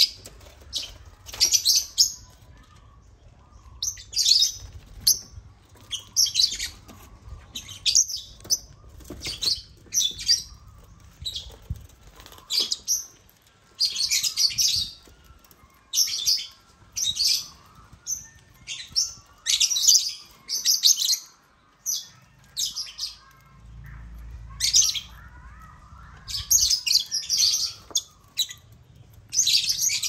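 African lovebirds (Agapornis) chirping: many short, high-pitched chirps in quick irregular clusters, with a new cluster every second or so.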